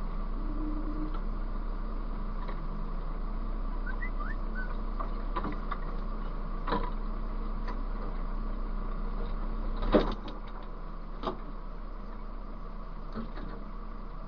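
HGV diesel engine ticking over at crawling speed, heard from inside the cab, with a few short clunks and clicks. The loudest clunk comes about ten seconds in, after which the low engine drone is a little quieter.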